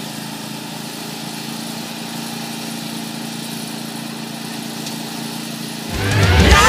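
A John Deere riding lawn tractor's engine running steadily as it drives off towing a cart. Loud music starts suddenly about six seconds in and drowns it out.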